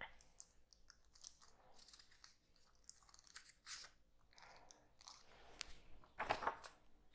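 Paper sheets rustling and crinkling as a handwritten page is lifted off and moved aside, with a louder crinkle about six seconds in.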